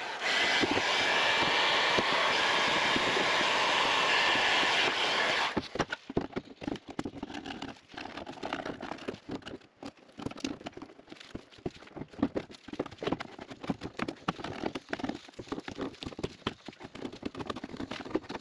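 Heat gun blowing steadily for about five and a half seconds, then switched off abruptly. A chisel follows, scraping and chipping heat-softened underseal off a car floor pan panel in short, irregular strokes.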